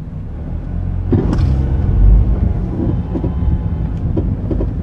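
Honda Stream under way, with engine and road rumble heard from inside the cabin that swells about two seconds in. A few short creaks or knocks come through, the noise from under the accelerator and brake pedals that sounds like two metal parts stretching and rubbing without lubrication, which the owner puts down to a faulty engine mount.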